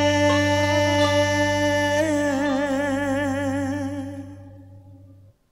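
A singer holds one long closing note with a wide vibrato over a sustained low accompaniment. The song fades out over the last two seconds into a brief silence.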